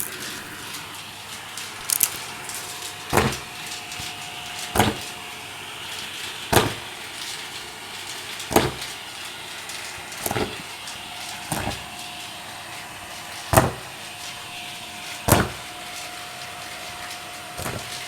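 Vacuum cleaner running steadily with a faint whine, its brush attachment knocking against the stair treads about every two seconds, roughly ten knocks in all.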